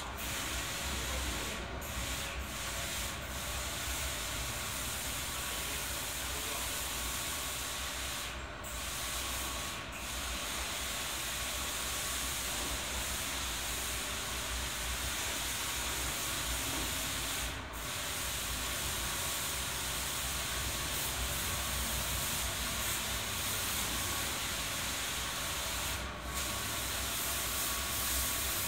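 Steady hiss with a low hum beneath it, dropping out for a moment about five times.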